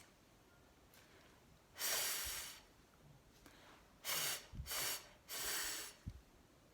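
A teacher voicing the unvoiced 'th' phonics sound, a breathy hiss through the teeth. It comes once about two seconds in, then three times in quick succession near the end.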